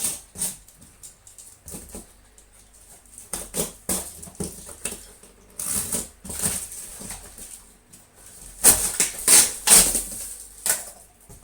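Packing material being handled and pulled out of a box, including an old quilt used as padding: irregular rustles and light knocks, with a louder run of rustling about nine seconds in.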